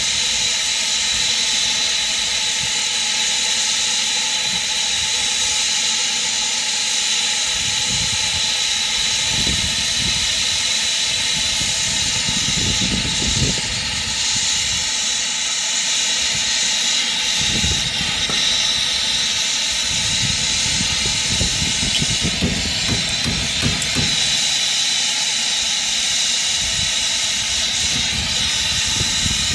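Brazing torch flame hissing steadily while it heats the brazed joint of a copper refrigerant line on an air-conditioner compressor to unsweat it, with irregular low rumbles in the second half.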